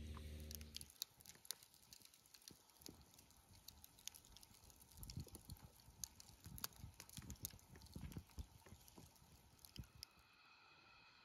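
Wood campfire burning down to coals, with faint, irregular crackles and small snaps. Near the end a steady high-pitched tone sets in.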